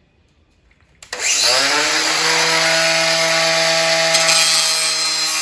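Cordless angle grinder starting about a second in, its whine rising as it spins up, then running at a steady pitch as it grinds the edge of a steel blade on a Victa Turbo Disc mower's cutter disc to sharpen it.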